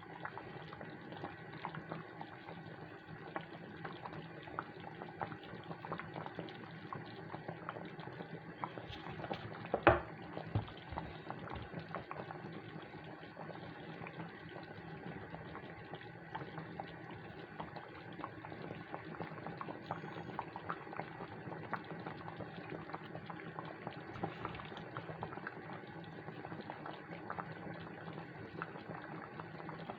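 A pot of chicken soup bubbling at a boil, with scattered small clicks and knocks as dumplings are dropped in. One sharper knock comes about ten seconds in.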